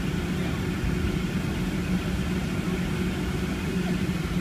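Boeing 757-200's engines at low taxi power, heard inside the cabin as a steady low rumble with a drone underneath, while the airliner taxis.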